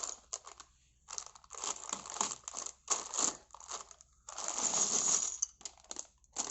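Plastic Lego parts bag crinkling and tearing as it is pulled open by hand, in irregular bursts with the longest about two thirds of the way through.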